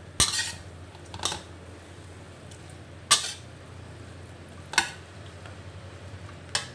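Metal spoon clanking against a stainless steel wok as spareribs are stirred and tossed: five sharp clinks, one to two seconds apart.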